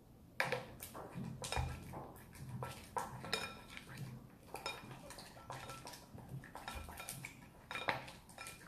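A utensil stirring slime in a glass bowl, knocking and scraping against the glass in quick irregular clinks, some with a short ring.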